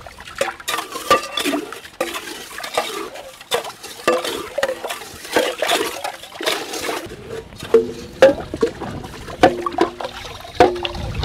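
A metal cup clinking and scraping against a stainless-steel pot while scooping snowmelt water, with water sloshing and splashing. In the last few seconds several sharp knocks each leave the pot ringing briefly.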